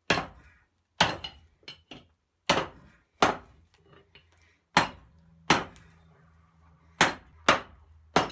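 Hand hammer striking red-hot rebar on a small cast-iron anvil, about nine blows unevenly spaced roughly a second apart with a couple of lighter taps between them, as the bent bar is straightened.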